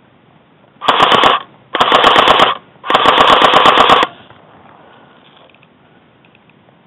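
Airsoft gun firing on full auto in three short bursts, each a rapid rattle of shots, the last one the longest, fired close to the microphone.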